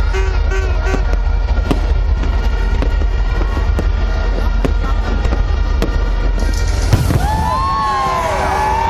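Fireworks popping and crackling over a steady low rumble, with one sharper bang about seven seconds in. After that bang, many overlapping rising-and-falling whistles fill the end.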